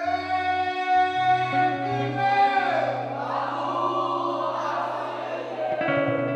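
Music: voices singing together in long held notes over a steady low instrumental accompaniment.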